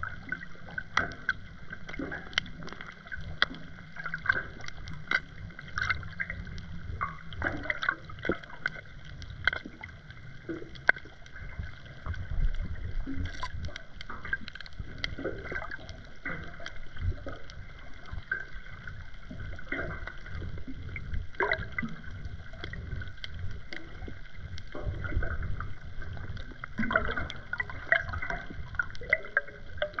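Underwater ambience picked up by a submerged GoPro action camera: a low rumble of moving water that swells twice, around twelve seconds in and again later, with scattered sharp clicks and crackles throughout.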